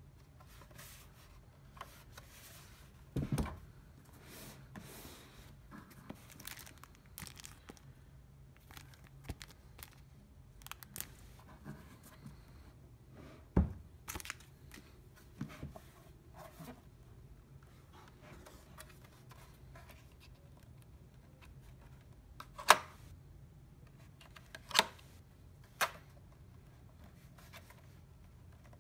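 Handling noise from unboxing: a plastic bag rustling and a projector and its box being moved and set down, with scattered clicks and a few louder knocks, the sharpest three near the end.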